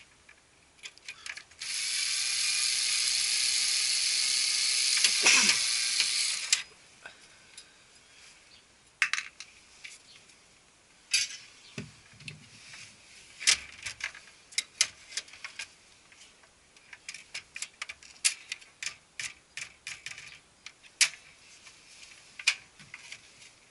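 Electric screwdriver running steadily for about five seconds as it backs out the screw holding the copier's fuser unit, its pitch dropping once near the end. After it comes a long run of sharp metal-and-plastic clicks and knocks as the fuser unit is unlatched and slid out of the machine.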